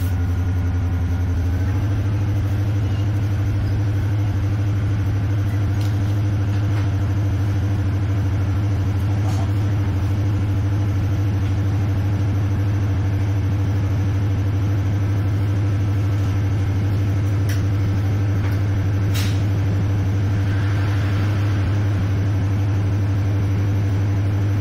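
Diesel multiple unit's engine running under way, heard inside the passenger carriage: a steady low drone that steps up slightly in pitch about two seconds in, with a few faint clicks.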